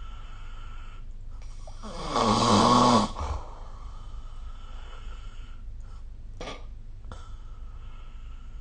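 A sleeping person snoring: one loud snore about two seconds in, lasting about a second, over a faint steady background tone.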